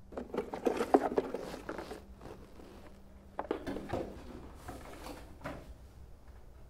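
A cardboard package being handled and opened: irregular rustling and light knocks, busiest in the first two seconds and again about three and a half seconds in.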